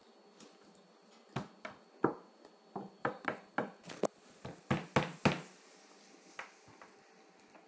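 A run of about a dozen light, irregular taps and clicks over some four seconds, then it goes quiet.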